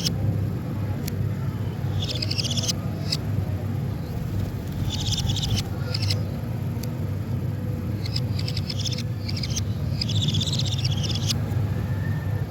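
Budgerigar chatter: four short bursts of rapid, high chirping warble every few seconds, with a few sharp clicks between them, over a steady low hum.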